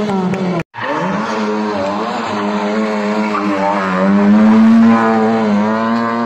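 Lada 2107 rally car engines running at high revs through a corner, their pitch rising and falling with throttle and gear changes. The sound cuts out abruptly for an instant under a second in, between two cars' passes.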